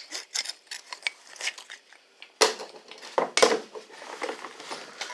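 Metal tools and parts clinking and clattering as they are handled and rummaged through, with a louder clatter about two and a half seconds in and another about a second later.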